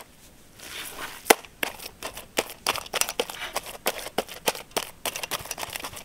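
Leaves crackling and crinkling as they are handled: a run of irregular small clicks with one sharper snap about a second in.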